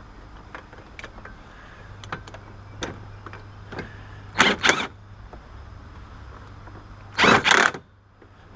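Hand tools tightening the harness bar's mounting bolt on a Lotus Elise: scattered light metallic clicks and knocks, with two louder short bursts of ratcheting about four and a half and seven seconds in, over a steady low hum that stops near the end.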